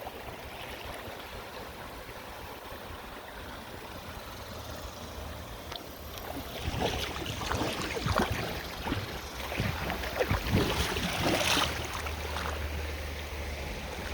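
River rapids running: a steady rush of water, with irregular splashing close to the microphone from about halfway in.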